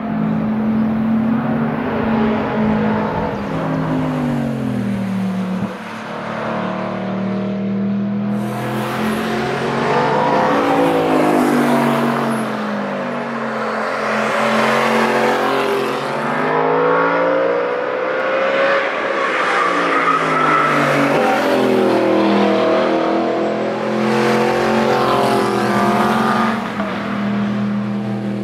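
Audi sports cars, among them an Audi R8, accelerating hard past the trackside one after another. The engine note climbs and drops again and again as each car pulls through the gears and passes by.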